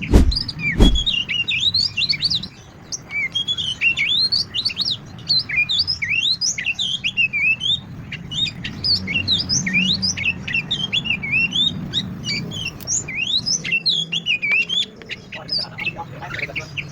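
Many small birds chirping busily, with short quick chirps overlapping throughout. A sharp knock comes just after the start.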